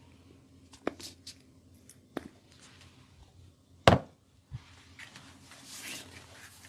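Hands working on a person during a massage: a few sharp smacks, the loudest just before four seconds in, then a soft rustle near the end.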